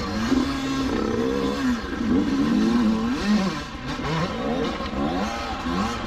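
Dirt bike engine being ridden hard, the revs rising and falling again and again as the throttle is opened and shut.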